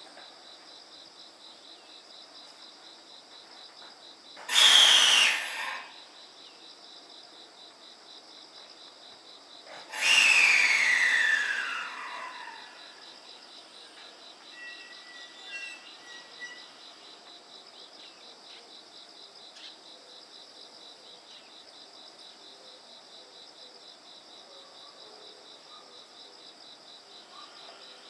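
Two loud hisses of air vented from a JR 313 series electric train standing at the platform, each with a falling whistle: a short one about four seconds in and a longer one about ten seconds in, its pitch sliding down over about two seconds. Beneath them, insects chirp steadily.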